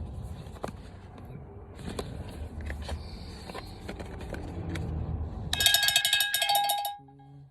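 Cardboard packaging and plastic-wrapped accessories handled and set down, making irregular clicks and rustling. About five and a half seconds in, a loud electronic tone with several pitches sounds in a rapid stutter for about a second and a half, then cuts off abruptly.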